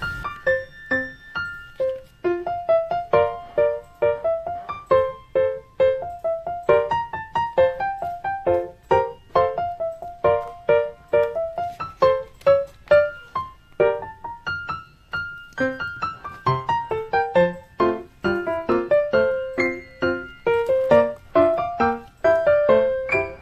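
Background piano music: a light melody of quick, separate notes played without pause.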